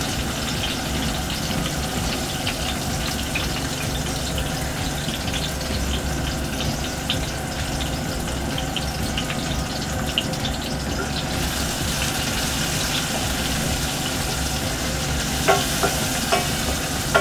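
Onions, garlic and scotch bonnet frying in hot oil in a pan: a steady sizzle with scattered small pops. Near the end a wooden spoon stirs the pan, giving a few sharp knocks.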